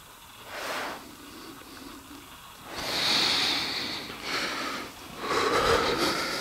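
A person breathing heavily in a few loud, breathy breaths: a short one about half a second in, then longer ones from about three seconds in.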